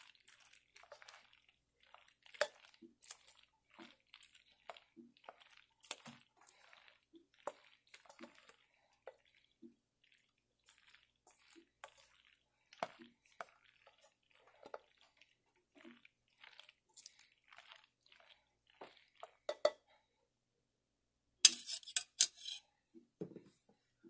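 Plastic slotted spoon stirring mayonnaise-dressed macaroni in a stainless steel pot: scattered soft scrapes, squishes and clicks of the spoon against the pot. Near the end comes a brief, louder burst of clicks.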